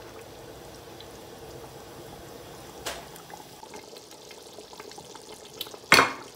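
Mutton karahi gravy boiling in a pot on the stove, a steady bubbling, with a loud sharp knock near the end.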